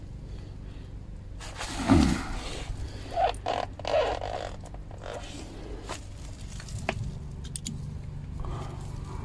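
Hand tools being handled at a car's brake caliper: a dull thump about two seconds in, a few short muffled knocks, then light sharp clicks near the end as a socket on an extension bar is fitted to the caliper bolt.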